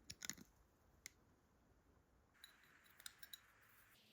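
Near silence with a few faint metal clicks of small tools or parts being handled: a short cluster at the start, a single click about a second in, and a few more in the second half.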